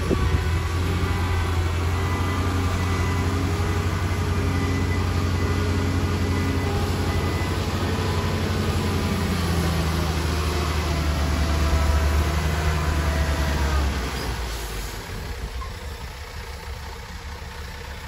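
Heavy diesel engine of earthmoving equipment running steadily with a deep drone, its pitch drifting slightly. About fourteen seconds in it grows quieter.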